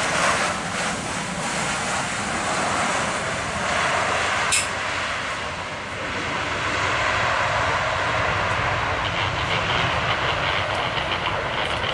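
Jet engines of a Boeing 737-900ER airliner making a loud, steady roar as it rolls out after landing with its spoilers up. A single sharp click about four and a half seconds in.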